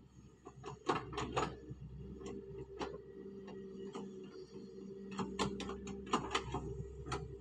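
Doosan wheeled excavator working: its engine runs with a steady hum while the bucket digs into the stony track, giving irregular sharp clacks and knocks of metal on rock. The clacks come in clusters about a second in and again between about five and six and a half seconds.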